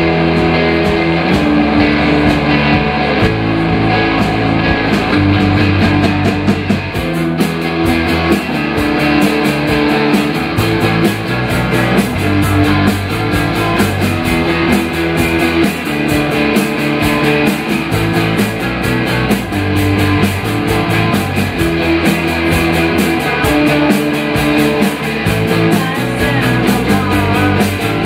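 A rock band playing live: two electric guitars, an electric bass and a drum kit, with the bass moving between notes under a steady drum beat.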